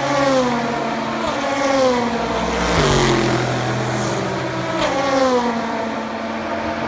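Race cars going past one after another at speed, about four in quick succession. Each engine note sweeps down in pitch as it goes by.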